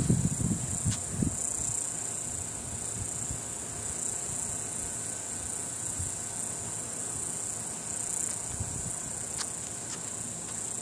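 Steady high-pitched chorus of insects, crickets or cicadas, shrilling without a break. Low rumbling bursts sound in the first second or so, then fade.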